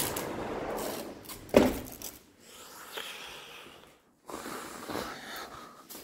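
Steady street noise, then a door pulled shut with a single thud about one and a half seconds in, after which the street noise is cut off. The rest is near quiet, with a few faint rustles.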